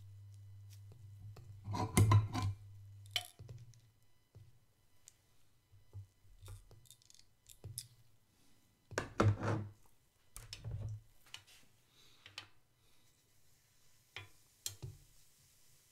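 Kitchen utensils and a small bowl being handled and set down on a tabletop and griddle plate: two clusters of knocks and clatter, about two seconds in and about nine seconds in, with scattered lighter clicks between them and near the end. A low hum is heard at first and stops about three seconds in.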